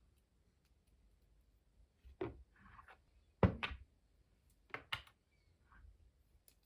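A few short knocks and thuds, about five in all, in a quiet small room, with the loudest pair about halfway through.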